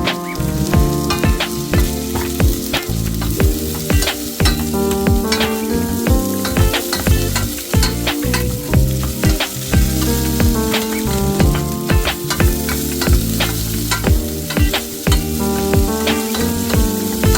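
Food sizzling in a frying pan, with scraping and clicks from stirring, under background music.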